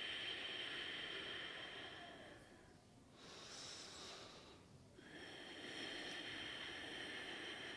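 Slow, faint breathing heard close to the microphone, in long drawn-out breaths: one fading about 2.5 seconds in, a shorter, brighter one from about 3 to 5 seconds, and another long one after that.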